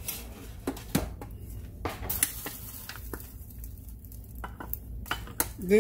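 Spoon and stainless steel pot clinking and scraping as grits are served into a ceramic bowl: a string of scattered clinks and knocks over a low steady hum.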